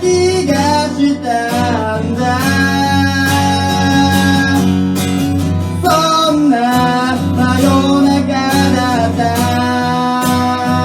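Acoustic guitar strumming chords under a sung melody line that bends and glides in pitch, with no clear words, the voice coming in most plainly near the start and again about six seconds in.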